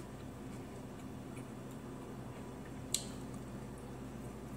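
Quiet eating by hand: faint small ticks and mouth sounds over a steady low hum, with one sharp click about three seconds in.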